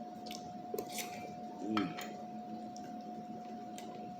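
A few light clicks of cutlery against a plate during eating.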